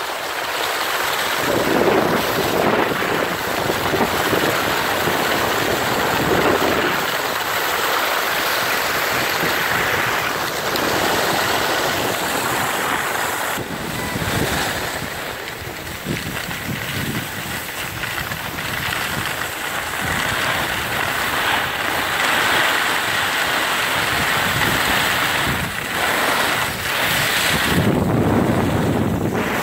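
Skis sliding and scraping over groomed snow, with wind buffeting the microphone: a steady rushing hiss that rises and falls.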